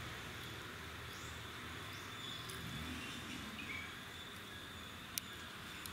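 Quiet rural outdoor ambience: a steady background hiss with a few faint, brief chirps, and one sharp click about five seconds in.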